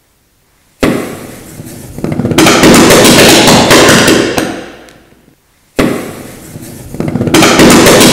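Cannon-fire reaction: potassium permanganate in burning ethanol over hydrogen peroxide. The permanganate frees oxygen that drives the ethanol to burn explosively, giving a sudden burst followed by a rapid, loud string of bangs and crackling pops. It dies away and then bursts into popping a second time.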